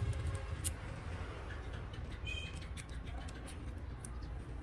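Light clicks and taps from fingers seating small internal parts into an opened Samsung Galaxy A8+ phone, over a steady low rumble. A brief high chirp a little past two seconds in.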